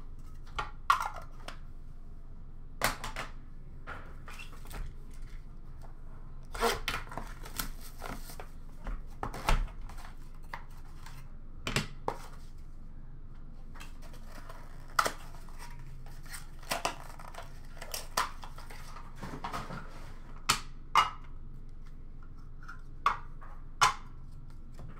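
Trading-card boxes and packs being opened and handled: cardboard and wrapper tearing and rustling in a few short stretches, with many scattered sharp clicks and knocks as boxes are set down and tossed aside, over a steady low hum.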